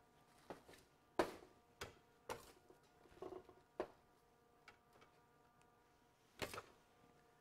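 Metal bench scraper cutting through bagel dough and striking a stainless steel worktable: several sharp taps and scrapes at irregular intervals, the loudest just over a second in and another at about six and a half seconds.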